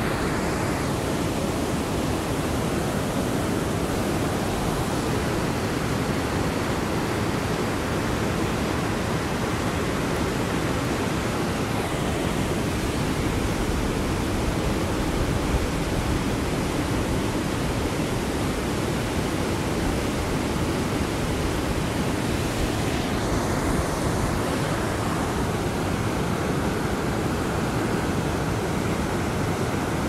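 Whitewater rapids of a Himalayan river rushing steadily, an even sound like white noise.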